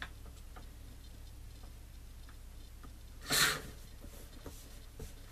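Paper being cut down to size: one short scraping swish about three seconds in, with a few faint small clicks over a low steady hum.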